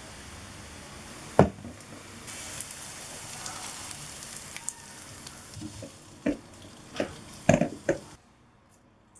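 Food sizzling in a frying pan, a steady hiss broken by several sharp knocks, the loudest about a second and a half in and a quick run of them near the end. The sizzling stops abruptly about eight seconds in.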